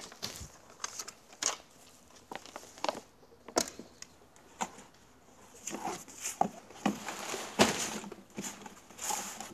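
Handling noises: irregular rustles, crinkles and light knocks, as of things being moved about in and around a cardboard box, coming thicker in the last few seconds.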